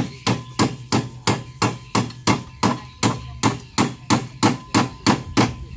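Hammer blows struck at an even pace, about three a second, some seventeen in all, during work fitting the boat's steering gear.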